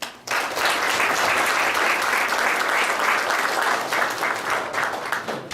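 Audience applauding: clapping breaks out abruptly and keeps up steadily.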